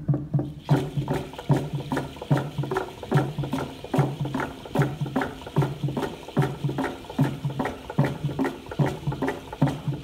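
Rhythmic percussion accompanying a Malakula kastom dance: evenly spaced pitched beats, about two to three a second, with a rattling layer that comes in about half a second in.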